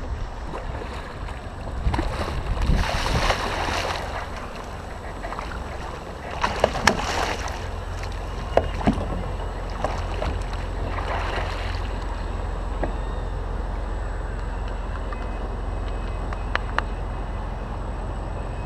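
Water splashing in several bursts beside a kayak, with sharp clicks and knocks against the hull, over a steady low rumble.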